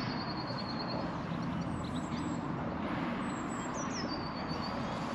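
A small songbird singing high, rapid trills, one phrase at the start and another about four seconds in, over a steady low outdoor rumble.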